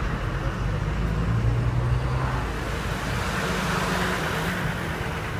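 A white van-type motor vehicle driving past close by: a low engine hum at first, then the noise of the pass swelling to its loudest about four seconds in and easing off.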